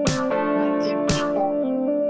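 Background music: plucked guitar-like notes over an electronic beat, with a strong hit about once a second.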